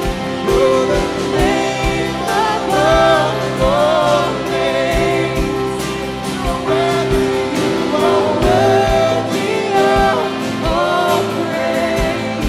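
Live worship band playing a contemporary worship song: a lead vocalist singing over electric and acoustic guitars, keyboard and a steady kick drum beat.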